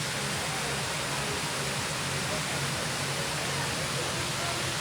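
Waterfall running: a steady, even rush of falling water with no breaks.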